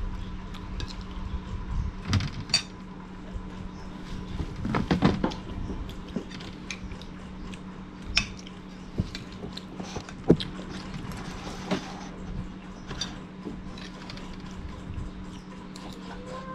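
Spoons and dishes clinking and knocking now and then as people eat, over a steady low hum.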